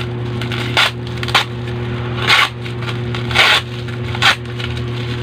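Packaging being handled and torn open during an unboxing, in about five short scraping, crackling bursts over a steady low hum.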